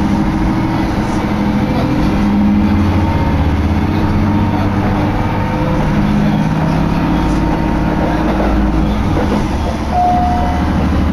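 A diesel railcar heard from inside while under way: its engine's steady drone over the running noise of the wheels on the rails. There is a short, high, steady tone about ten seconds in.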